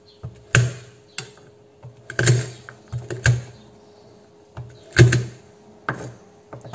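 Cleaver knocking on a wooden cutting board as garlic cloves are smashed and cut: a handful of sharp, irregularly spaced knocks, the loudest about five seconds in.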